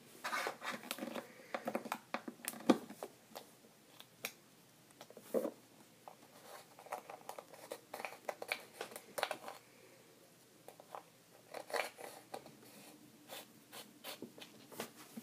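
Purple glitter slime being squished and stretched by hand, giving irregular sticky clicks, pops and short crackling bursts.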